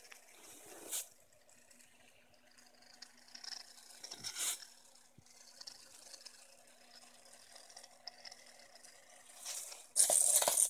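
Faint whirring of a small Raspberry Pi line-following robot's DC gear motors with a steady low hum, swelling briefly about three times. A loud rustling burst fills the last second.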